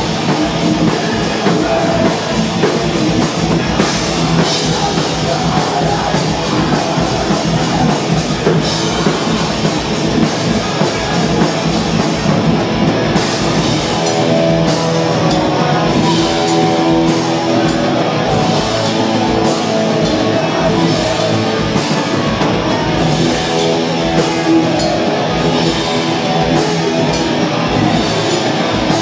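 Live hardcore band playing loud, with distorted electric guitars and a drum kit going throughout.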